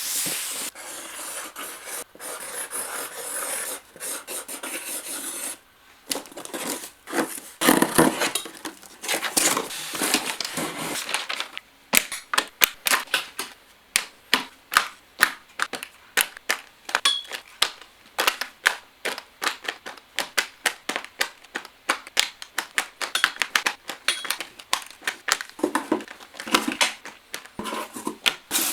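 Sock packaging being handled and opened up close: rustling and tearing at first, then a long run of sharp clicks and scratches, a few a second.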